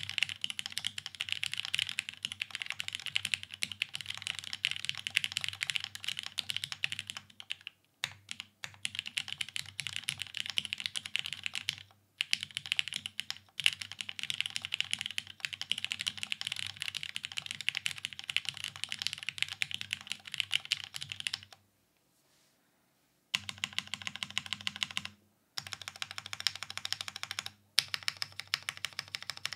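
Fast typing on a Dolice by TGR x Linworks custom mechanical keyboard fitted with lubed Vintage Black linear switches on an aluminium plate, with no dampening and GMK Striker keycaps. The keystrokes come in quick, steady runs with brief breaks, and there is a stop of about two seconds some three-quarters of the way through.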